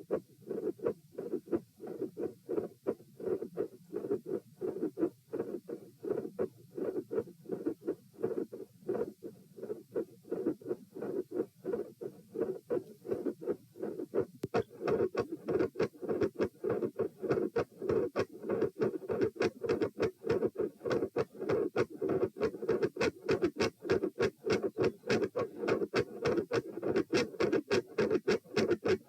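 Heart sounds picked up at the pulmonic (P) listening position with the person sitting: a steady rhythm of short beats. About halfway through, a second recording follows in which the beats are louder and sharper.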